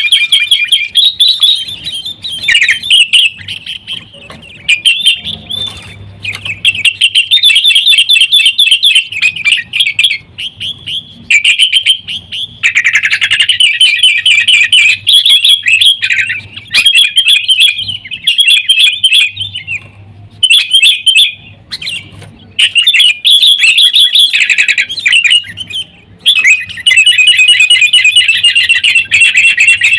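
Sooty-headed bulbuls (kutilang) calling in a noisy, fighting-style chatter: bursts of rapid, bright chirping phrases broken by short pauses.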